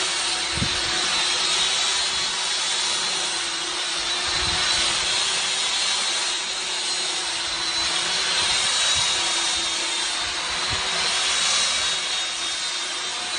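Electric construction mixer running steadily under load, its motor giving a constant high whine over a noisy churning sound.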